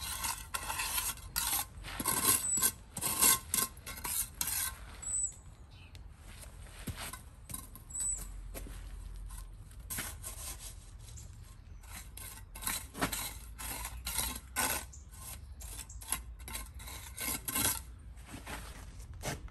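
Steel brick trowel scraping and pushing gritty stone dust along a screed rail in quick repeated strokes, with a lull in the middle.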